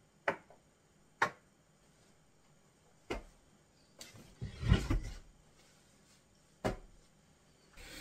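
Sharp wooden knocks and clicks from a wardrobe's doors and shelves as clothes are taken out, half a dozen spread apart, with a heavier thump and rustle of handled clothing about halfway through.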